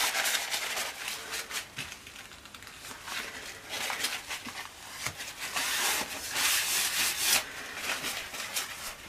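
Rustling and rubbing handling noise from gloved hands working with a paper towel or cloth, coming and going in several long swells with no clear knocks.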